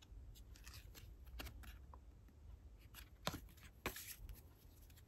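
Faint rustle of a hand-held stack of photocards being flipped through, each card slid off the front of the pile with a soft swish and tap, and two sharper card snaps a bit past the middle.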